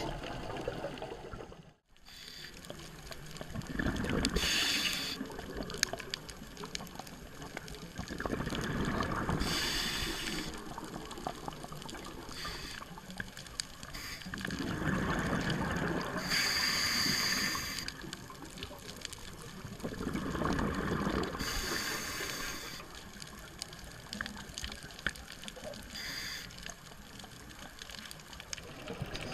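A scuba diver breathing through a regulator underwater: a short hiss on each inhale and a rush of exhaled bubbles, repeating about every five to six seconds.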